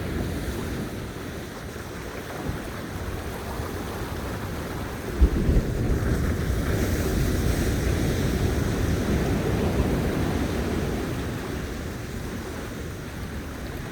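Sea waves washing onto a beach, with sea wind buffeting the phone's microphone in a steady low rumble. A sharp gust hits the microphone about five seconds in, and a brighter wash of surf follows a second later.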